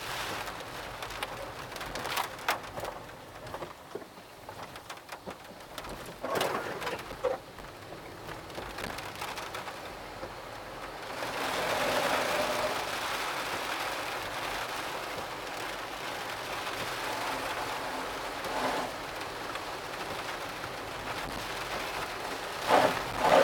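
Typhoon rain pouring steadily, growing heavier and louder about eleven seconds in, with a few sharp knocks along the way.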